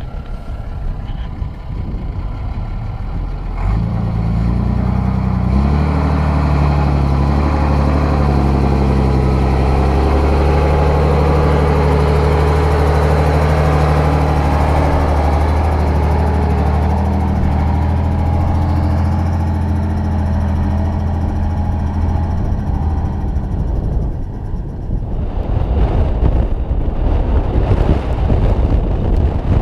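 Unimog 419's diesel engine running steadily as the truck drives across the slickrock, its note shifting about five seconds in. Near the end the engine gives way to wind noise on the microphone.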